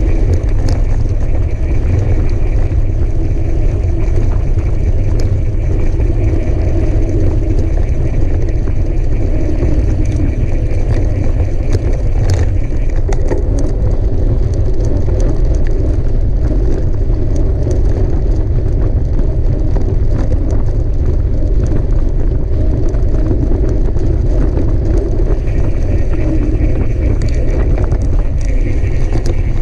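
A mountain bike being ridden at speed: a steady, loud rush and rumble of wind on the microphone, with scattered sharp clicks and rattles from the bike over the trail.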